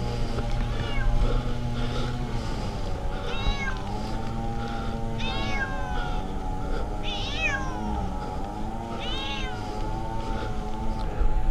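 Tabby cat stranded up a tree meowing over and over, a loud rising-and-falling cry every two seconds or so: the distress crying of a cat that has been stuck aloft for days.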